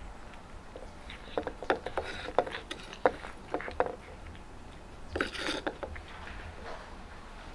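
Cat eating snacks from a stainless steel bowl: irregular crunching and clicking of chewing and of the bowl, with a louder brief rustling burst about five seconds in.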